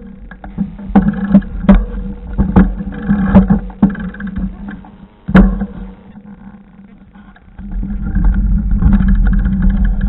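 Knocks and rattles of a camera jolting on a moving vehicle as it crosses rough ground, then a steady low rumble of wheels on the track and wind from about seven and a half seconds in.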